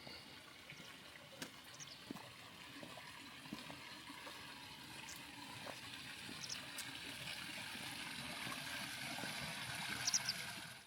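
Running water, like a stream, a steady rushing that slowly grows louder and cuts off suddenly at the end.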